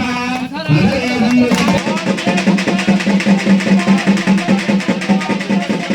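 Music: a plucked-string melody over a held low note, settling into a quick, steady rhythm about two seconds in.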